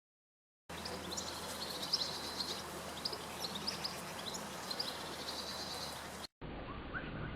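Small songbirds chirping and twittering in quick, high notes over a steady background hiss, starting after a short silence. The recording cuts off about six seconds in, and after a brief gap a different, duller recording of birds calling with short rising chirps begins.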